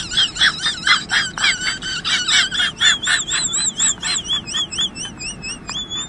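Golden retriever whining in a rapid run of high, wavering squeals, about four or five a second, that become more drawn-out and warbling in the second half.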